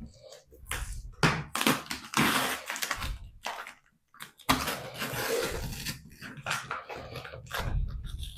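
Cardboard LEGO packaging being torn open and handled, in irregular bursts of ripping and rustling with short pauses.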